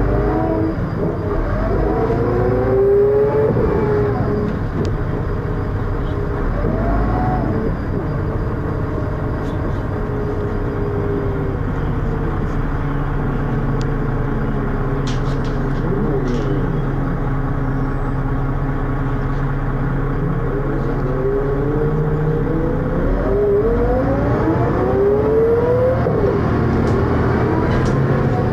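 Dennis Arrow bus's diesel engine and ZF automatic gearbox heard from on board, a steady engine drone with whines that rise and fall as the bus accelerates and shifts, several times. The gearbox is one the owner of the recording calls slipping, with a strange high-pitched noise and lots of engine thrash.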